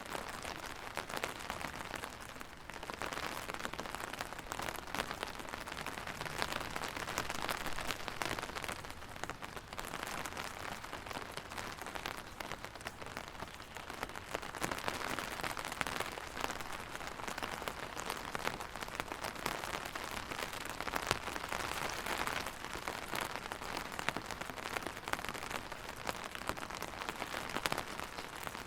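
Steady rain falling on a surface, a dense patter of drops that swells and eases gently every few seconds.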